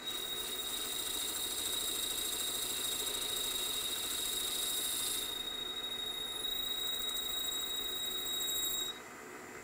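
Boring head on a milling machine cutting a bore into a brass cylinder block. A steady high-pitched whine rides over the hiss of the cut, starting as the cutter bites and stopping sharply about nine seconds in.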